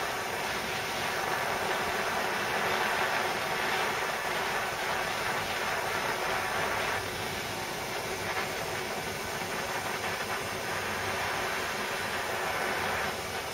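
Handheld butane blowtorch flame hissing steadily as it heats a lead weight until it turns shiny silver, the stage before the lead is dipped in plastic coating.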